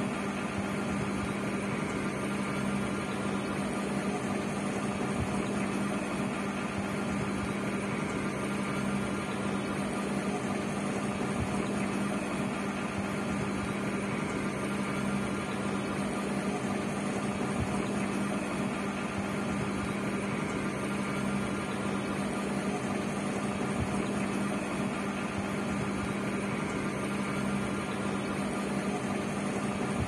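Aquarium air pump humming steadily with a strong even drone, over a constant hiss of air and water from the air-driven filter.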